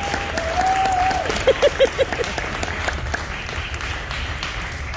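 Audience applauding, dense clapping throughout, with a drawn-out cheer in the first second and four quick short calls about a second and a half in.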